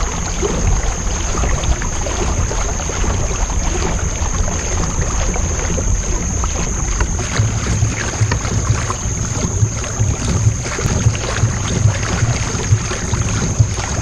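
Water splashing and trickling along the hull of a Hobie Outback kayak under way, with a low wind rumble on the microphone. Many small irregular ticks run through it, and a thin steady high tone carries on throughout.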